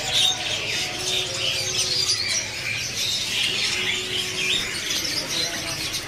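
Many caged birds chirping and twittering together, short high calls overlapping one another.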